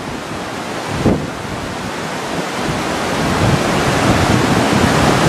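Fast, muddy floodwater of a swollen wadi rushing steadily past, with wind buffeting the microphone. There is a short bump about a second in, and the rush grows louder in the second half.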